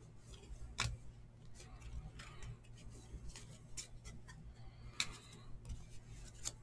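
Trading cards being handled and sorted by hand: soft clicks and taps of card edges against each other and the table, with two sharper clicks about a second in and about five seconds in, over a low steady hum.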